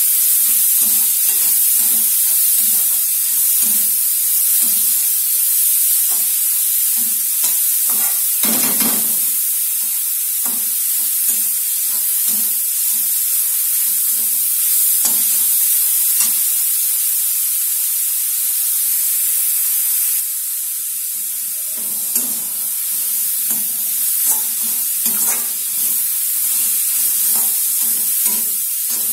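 Grated cabbage and carrot sizzling in hot oil in a metal kadhai, with a spatula scraping and turning it in repeated quick strokes. The stirring stops for a few seconds past the middle while the sizzle goes on, then starts again.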